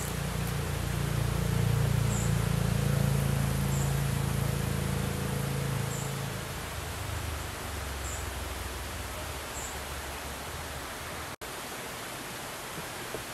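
Steady rushing of flowing river water. A low hum swells and fades over the first half, and faint, short high chirps come every second or two.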